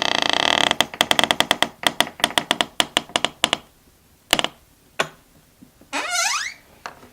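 Old door hinge creaking: a long drawn-out creak breaks up, a little under a second in, into a fast string of creaking ticks that slow and die away. A few single clicks follow, then a short rising creak near the end.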